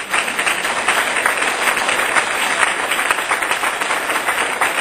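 Audience applauding: many hands clapping together, steady and loud, without a pause.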